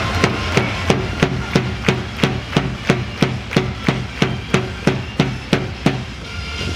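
A steady cheering beat of sharp strikes in unison, about three a second, over a low stadium rumble. It thins out in the last second.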